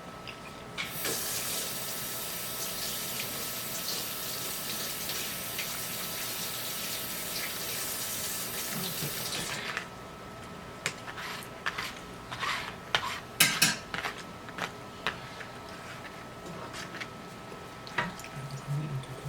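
Water running from a tap for about nine seconds and stopping, then a string of sharp clinks and knocks, like dishes being handled.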